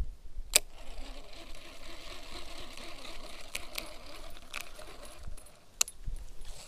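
Baitcasting reel: a sharp click about half a second in, then the steady whir of the spool and gears as the lure goes out and is reeled back in, stopping about five seconds in, with a few light clicks near the end.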